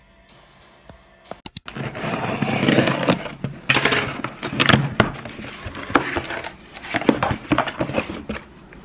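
Packing tape being ripped off a cardboard shipping box, with cardboard scraping and rustling as the box is pulled open. The sound starts about two seconds in after a quiet start and goes on loud and irregular.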